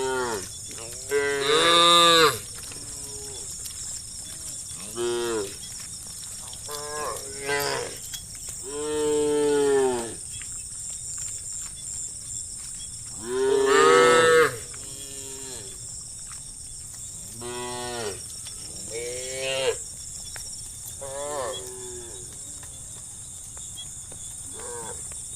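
Cows in a herd mooing one after another, about ten calls of a second or two each that rise and fall in pitch, some near and loud, others fainter. A steady high hiss lies under them.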